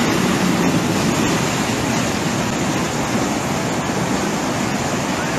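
Steady rush of fast-flowing muddy floodwater, with a small 4x4's engine faintly under it at first as the vehicle ploughs into the stream.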